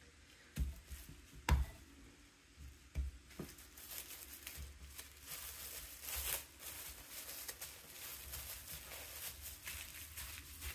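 Plastic wrap crinkling and rustling as a ball of dough is folded up in it on a wooden cutting board, after a few knocks of the dough and hands on the board in the first few seconds.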